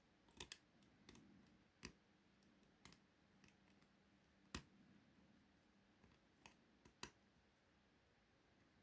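Faint, sharp metallic clicks, about ten at irregular intervals, from a hook pick lifting the pin stacks of a five-pin euro cylinder lock held under heavy tension; the clicks are the pins moving and setting at the shear line.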